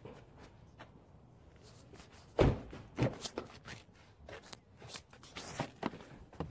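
Footsteps on pavement with scattered small knocks. Two sharp thumps, about two and a half and three seconds in, are the loudest sounds.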